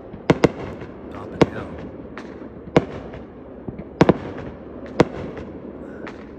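Neighbourhood fireworks going off: about seven sharp bangs at irregular intervals, some in quick pairs, over a continuous din of more distant bursts.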